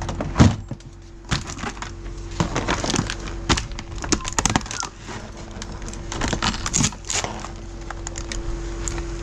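Irregular knocks, clicks and clatter of gear being handled on a fishing boat, over a steady low hum.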